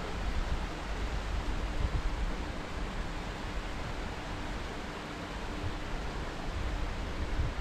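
Steady rushing wind on the microphone of a camera riding an open chairlift, with uneven low rumbling buffets and a faint hum that comes and goes.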